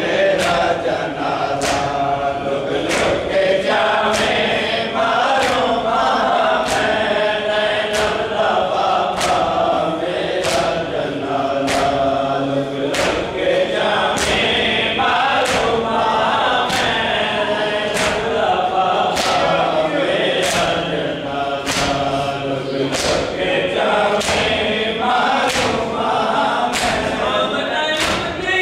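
A crowd of men chanting a mourning nauha in unison, over a steady beat of matam, chest-beating with open hands, about three slaps every two seconds.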